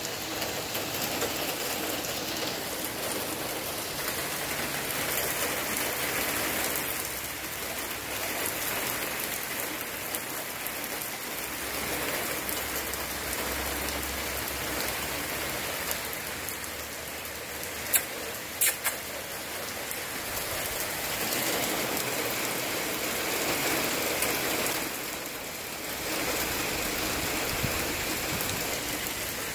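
Steady rain falling and pattering on the pavement. Three sharp clicks come a little past halfway.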